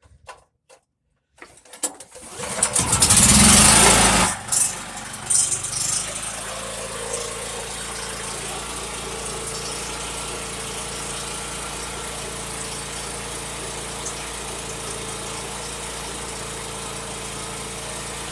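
Champion 6250-watt inverter generator pull-started with the recoil rope, its engine catching and running loud for a couple of seconds, then settling into a steady, even run about six seconds in.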